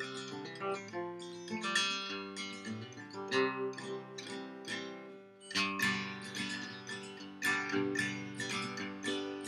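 Late-1950s Harmony H162 acoustic guitar, solid spruce top and mahogany body, played by hand: a rhythmic run of picked notes and chords, with a short lull about five seconds in before a strong chord.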